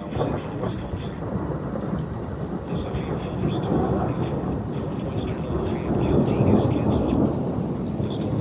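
Rolling thunder rumbling over steady rain, swelling to its loudest about six to seven seconds in.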